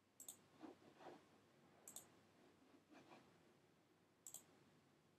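Near silence broken by three faint computer mouse clicks about two seconds apart, with a few softer taps in between.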